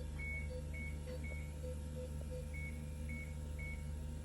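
Hospital medical equipment alarm beeping: short high beeps in repeated sets of three, with fainter lower beeps between them, over a steady low hum.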